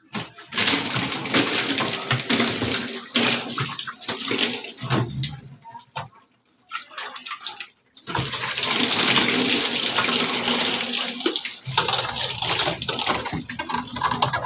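Water being poured and splashing while the inside of a refrigerator is rinsed clean. It stops for a few seconds near the middle, then runs again.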